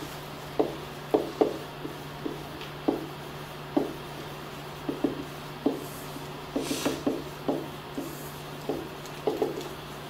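Dry-erase marker writing on a whiteboard: irregular short squeaks and taps, one per stroke of the letters, over a steady low hum.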